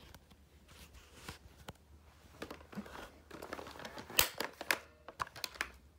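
Rustling and handling noise from a handheld phone and a person moving about, with scattered light clicks; the sharpest click comes about four seconds in.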